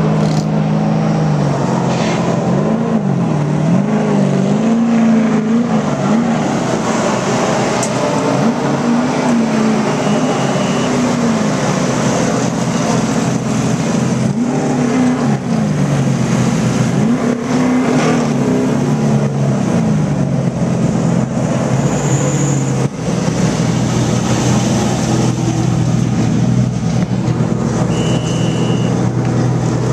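NASCAR Truck Series race trucks' V8 engines running in the garage, revving up and down again and again over a steady idle.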